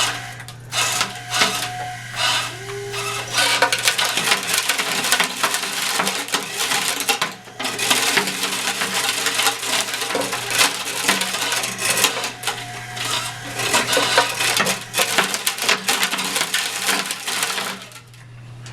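Small toy helicopter and quadcopter rotors whirring over a steady low hum, with rapid clattering and clicking throughout, dropping off for a moment about seven seconds in.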